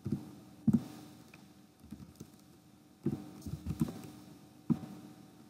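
Computer keyboard being typed on in short bursts: a couple of sharp single keystrokes in the first second, then a quick run of keystrokes about three seconds in.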